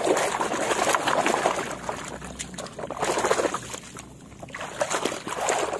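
Muddy water sloshing and splashing in a basin as a hand swishes and scrubs a toy through it, in uneven bursts with a lull about four seconds in.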